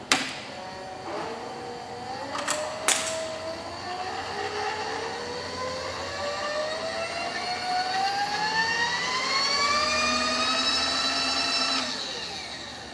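Milling machine table power feed motor switched on with a click, whining and rising steadily in pitch as its speed knob is turned up, with a second click about three seconds in. The whine stops shortly before the end.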